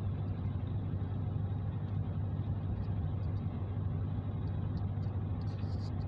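Steady low drone of a car cruising on a highway, heard from inside the cabin: engine and tyre noise with no change in speed.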